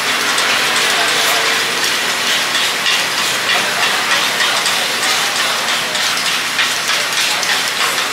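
Rapid clicking and scraping of a pick turning takoyaki balls in the cups of a cast-iron takoyaki griddle, over the sizzle of the cooking batter.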